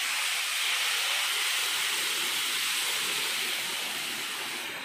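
Boiling water poured into a hot pan of fried vermicelli and masala, hissing and sizzling steadily as it hits the hot pan, easing slightly near the end.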